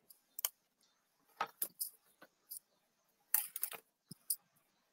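Wreath-making materials being handled: short crackles and rustles of fabric strips and a grapevine wreath, in about a dozen sharp bursts, the loudest cluster about three and a half seconds in.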